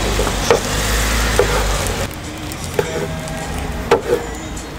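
Knife chopping sundae on a wooden cutting board: four sharp knocks spaced about a second apart, over a steady hiss that drops away about two seconds in.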